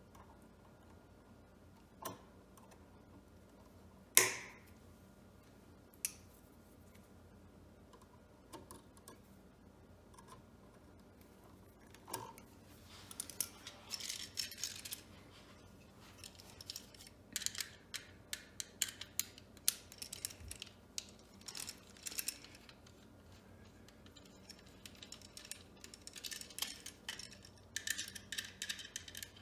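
Small metal hand tools and stiff electrical wires being handled: scattered clicks and snips, one sharp metallic clink with a brief ring about four seconds in, then bursts of rapid scratchy clicking and scraping.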